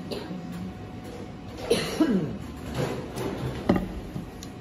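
Scattered handling and movement noise in a small room while instruments and cables are set up, with short vocal sounds and one sharp knock about three-quarters of the way through.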